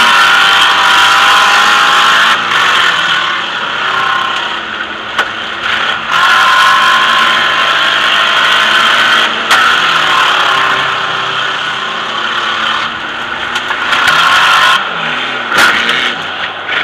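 Democross car's engine heard from inside the cabin, revving up and down under hard driving, with a couple of sharp knocks.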